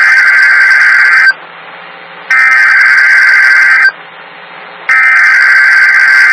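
Emergency Alert System SAME header: three loud bursts of digital data tones, each about a second and a half, with about a second of hiss between them. This header encodes the alert, here a Child Abduction Emergency (Amber Alert).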